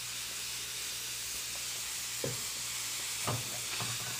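Cooking oil heating in an aluminium wok over a gas burner: a steady, soft sizzling hiss, with a few light knocks about two and three seconds in.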